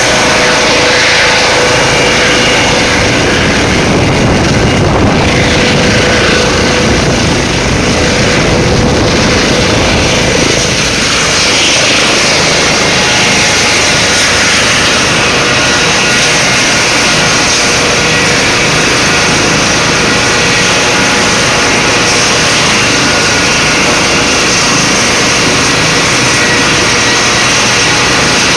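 Eurocopter EC135 air ambulance helicopter setting down on a helipad from a low hover, then running steadily on its skids with the main rotor and shrouded tail fan still turning.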